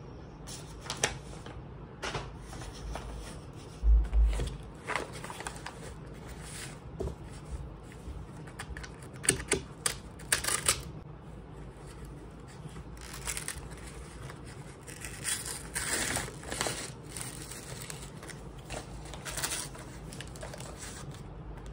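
A kraft-paper mailer being cut open with a knife and unwrapped by hand: scattered taps and clicks with paper rustling, tearing and crinkling. A dull thump comes about four seconds in.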